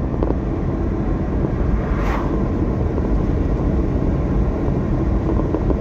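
Steady road and engine noise of a car driving along an asphalt highway, with an oncoming car passing by in a brief swish about two seconds in.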